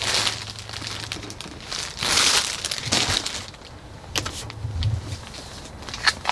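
Rustling and crinkling as things are handled, with a louder rustle about two seconds in and a few sharp clicks near the end.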